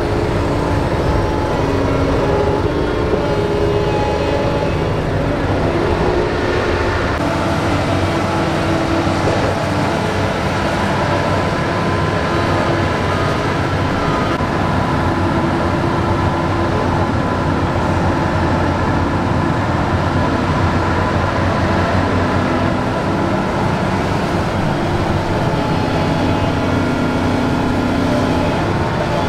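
Doosan DX225LCA crawler excavator's diesel engine running steadily under working load, with a low rumble and steady machine tones that step up and down in pitch as the boom and bucket move.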